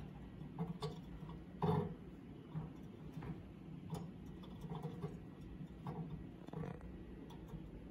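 Faint, irregular small clicks and taps of fingers handling and seating the sensor inside a thermal analyzer's furnace through its operation window, with one louder knock about two seconds in.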